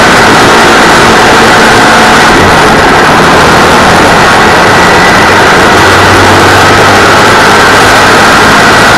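Engine of a 602 cc-class dirt-track race car pulling hard, heard on board, very loud, with a steady high engine note.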